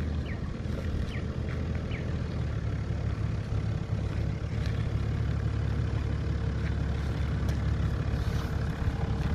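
Four-wheel-drive vehicle's engine running steadily at low revs, a low rumble, with a few faint short chirps above it.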